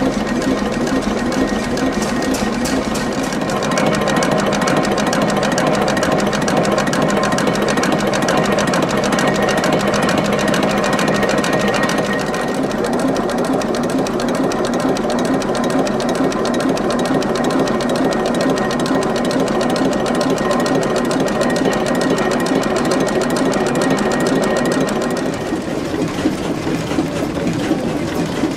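ABC 3DU three-cylinder stationary diesel engine, rated 200 hp at 750 rpm, running steadily with a fast, even mechanical clatter. About 26 s in the sound drops in level and changes to another running engine.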